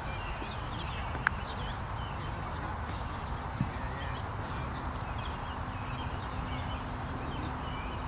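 Small birds chirping and singing from the surrounding trees, many short calls overlapping throughout, over a steady low rumble. A single sharp click sounds about a second in, with a softer knock a few seconds later.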